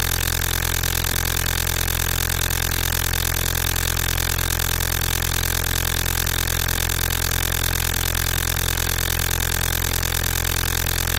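A steady, unchanging low drone, layered with several fixed tones and a hiss above it.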